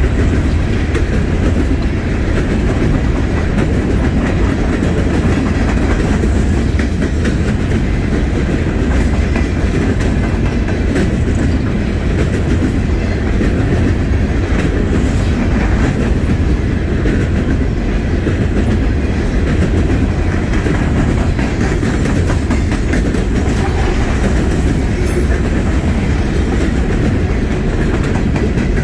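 Coal cars of a freight train rolling past: a loud, steady rumble of steel wheels on rail with a continuous clickety-clack of wheels over rail joints.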